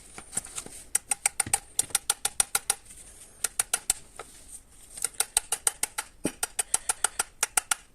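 Quick runs of sharp clicking taps, about seven a second, in several groups with short breaks, as the front end cap is worked back onto an Audi A6 C5 heater blower motor during reassembly.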